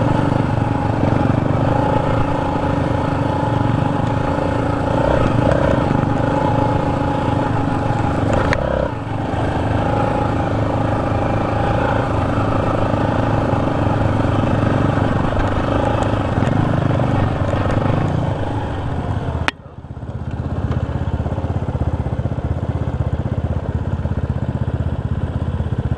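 Sport ATV engine running steadily as the quad rides across sand. About two-thirds of the way through there is a sharp click, and the engine sound drops off, then carries on more softly.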